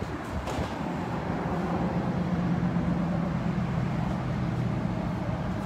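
Steady low engine hum of a motor vehicle running close by, swelling slightly over the first couple of seconds, with a light click about half a second in.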